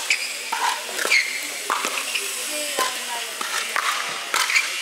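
Pickleball paddles striking a hard plastic ball in a fast doubles rally: a quick, irregular series of sharp pops.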